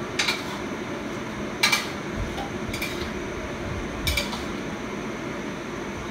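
Tableware clinking: four short clicks of a plate and utensil, the second the loudest, over a steady hum.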